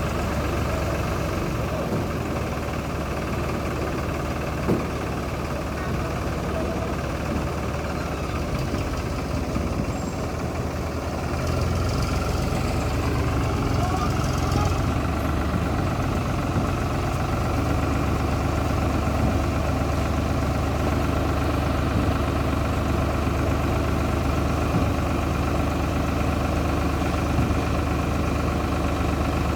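Road roller's diesel engine running steadily, growing somewhat louder and deeper about twelve seconds in.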